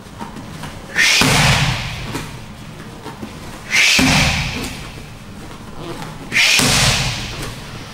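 Elbow strikes landing on curved Thai pads: three loud smacks about every two and a half seconds, each dying away in a ringing echo.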